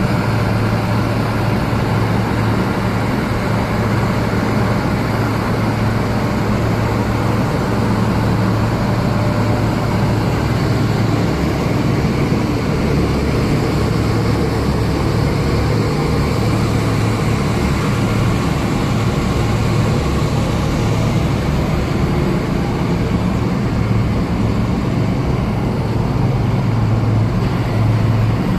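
Fuel-oil burner firing a rotary smelting furnace, with its blower and fans running: a steady, loud rushing noise over a low hum.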